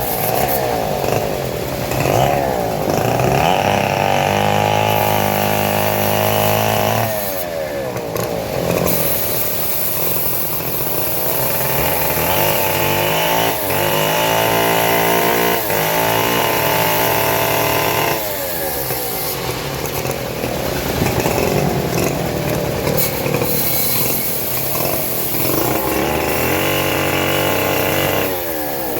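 Engine-powered saw cutting teak wood, running steadily with its engine pitch repeatedly dropping and climbing back as the cut loads and frees it.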